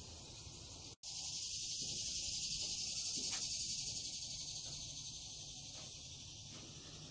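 Insects calling in a steady, high-pitched chorus. The sound cuts out for an instant about a second in, then returns louder and slowly fades.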